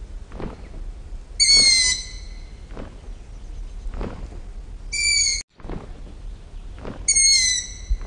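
Owl screeching three times, high-pitched, each call about half a second long and falling slightly in pitch; the second call cuts off abruptly. Faint soft beats recur about once a second underneath.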